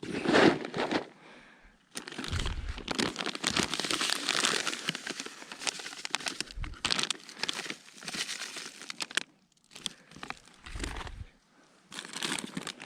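Crinkling, rustling handling noise in long bursts with short pauses, like packaging or a bag being worked by hand, with a few brief low rumbles.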